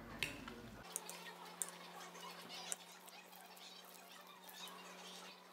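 A wooden spoon and a metal fork tossing salad on a ceramic plate: a few sharp clicks of the utensils striking the plate, four in the first three seconds, over a soft scraping and rustle of the leaves.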